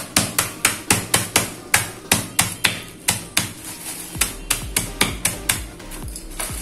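Wooden rolling pin pounding chocolate biscuits in a plastic bag on a kitchen counter, crushing them to powder. It gives about three to four sharp knocks a second, which grow a little weaker in the second half.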